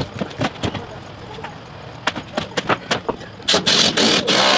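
A few light knocks and clatter of boards and tools, then about three and a half seconds in a cordless power driver starts running hard and loud, driving a screw down into a wooden deck board.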